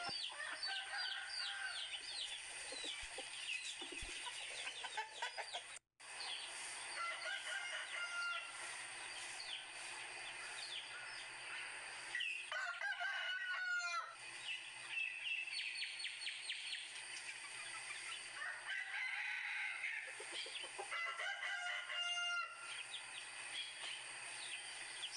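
Faint farmyard ambience: chickens and roosters crowing and clucking, with many short bird chirps. It drops out for an instant about six seconds in.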